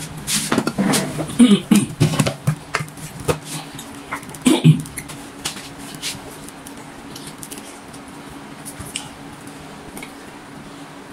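Plates and a serving utensil clinking and knocking for the first few seconds as rice is served onto a plate, then only soft occasional clicks while eating by hand. A steady low hum runs underneath.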